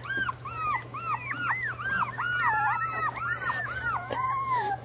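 Australian Shepherd puppies whining: a quick run of short, high, arching whimpers, about three a second and sometimes overlapping, ending in a longer held whine. The owner thinks they may be cold after getting wet walking in their food.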